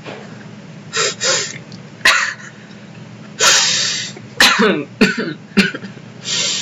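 A person's hard, cough-like laughter: a string of short, breathy bursts heard over a video-call microphone.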